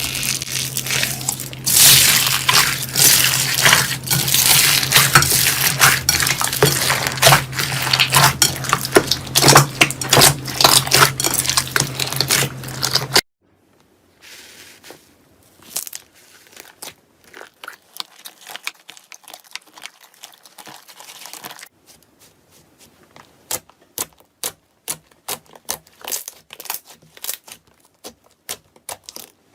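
Slime being squeezed and worked by hand, giving dense crackling and clicking with a steady low hum beneath. About halfway through it drops suddenly to a much quieter run of separate sharp clicks and pops, which come faster near the end.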